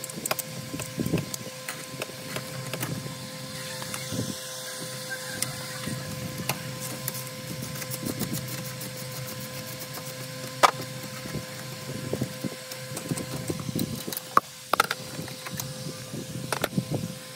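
Scattered, irregular clicks and knocks of hand tools and parts being handled during work on a car's dashboard, over a steady hum.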